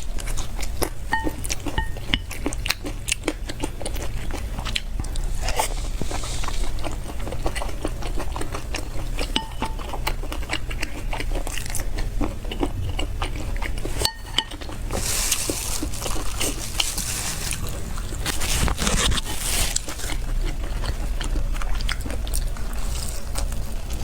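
Close-miked eating: a person biting and chewing food with moist clicks and crunches, and a few denser, hissier stretches between about 15 and 20 seconds in.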